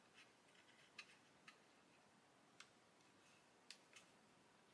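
Near silence broken by a few faint, irregular clicks: fingers and fingernail handling a glued plastic model fuselage.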